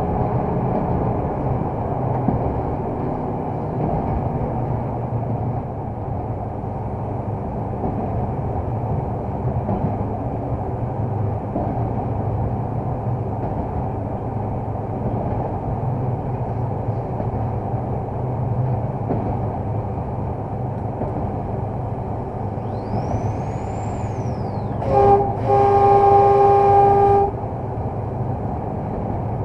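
LDE2100 (060-DA) diesel-electric locomotive heard from inside its cab: the Sulzer diesel engine running steadily with a rumble of wheels on the rails. About 25 seconds in the locomotive horn gives a brief toot, then a longer blast of about two seconds.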